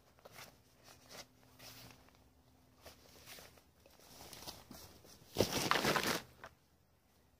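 Intermittent rustles and light crunches, with a louder crackling rustle lasting under a second a little past halfway.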